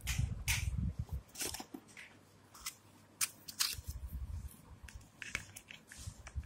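Cardboard box and plastic packaging being opened by hand: an irregular string of sharp clicks, scrapes and crinkles, with dull low thumps as the pieces are set down and moved.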